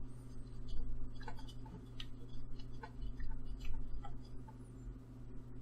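Paintbrush being cleaned in a rinse cup, tapping and clinking against its side in light, irregular ticks about two a second, over a steady low hum.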